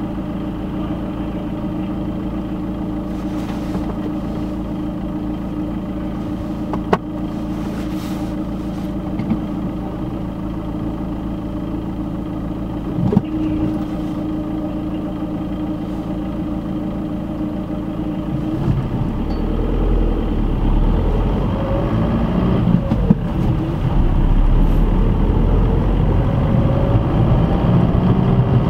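Car engine idling steadily, heard from inside the cabin while stopped; about two-thirds of the way through the car pulls away and the engine speeds up, with engine and road noise growing louder.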